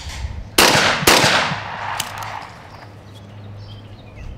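Competition skeet double from an over-and-under shotgun: two loud shots about half a second apart, each ringing out in a long fading echo, then a fainter sharp crack about a second later.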